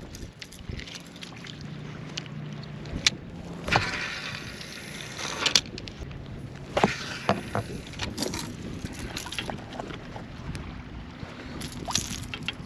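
Fishing from a kayak: scattered knocks and clicks of gear against the hull, with short rushes of noise about four and seven seconds in.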